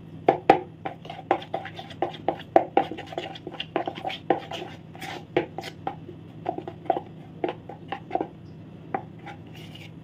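Metal spoon stirring thick melted compound chocolate mixed with gulkand in a plastic bowl: quick, irregular clicks and taps of the spoon against the bowl, several a second.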